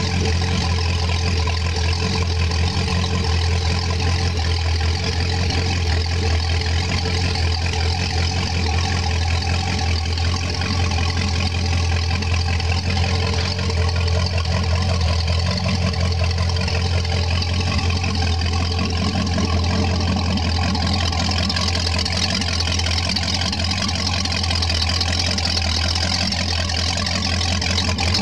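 Volvo Penta 5.0 SX marine engine, a Ford-based 302 small-block V8, running steadily at idle.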